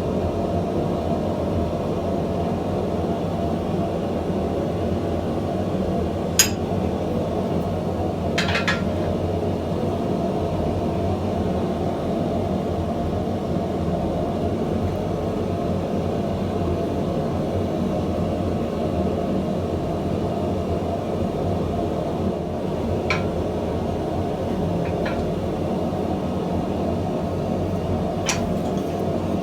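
A steady roar with a handful of sharp clicks; the loudest click comes about six seconds in.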